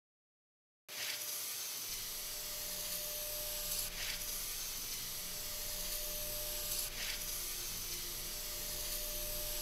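A steady hiss that starts abruptly about a second in and swells briefly about every three seconds, over a low pulsing music bed and a faint steady tone.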